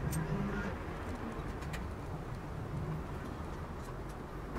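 A dove cooing in short low phrases, with a couple of light clicks from chainsaw parts being handled and screwed on.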